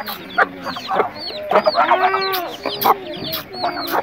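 Domestic hen and her chicks feeding: the chicks peep rapidly and constantly in short, high, falling notes while the hen clucks, with one drawn-out hen call about halfway through.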